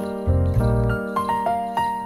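Background music: a melody of short ringing notes over a held chord, with a low bass coming in about a quarter second in.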